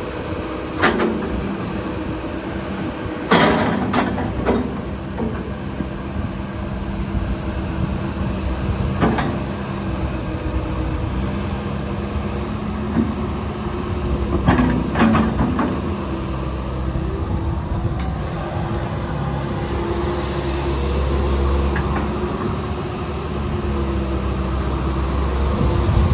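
Komatsu PC160LC-7 track excavator running steadily, its diesel engine and hydraulics working, with a handful of sharp metal clanks, the loudest about three and a half seconds in.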